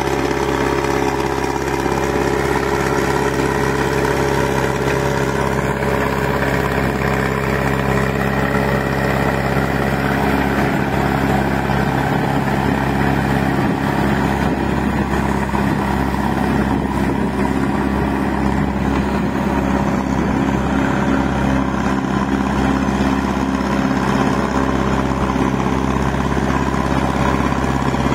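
Massey Ferguson 185 tractor's diesel engine running steadily under load as it pulls a rotary puddler through a flooded paddy field.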